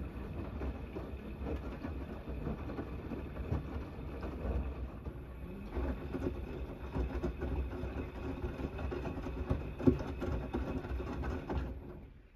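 Gorenje WNEI front-loading washing machine tumbling a wet, sudsy load during a 90 °C cotton main wash: the motor turns the drum while the laundry and water slosh and flop inside, with a louder thump about ten seconds in. The drum stops near the end.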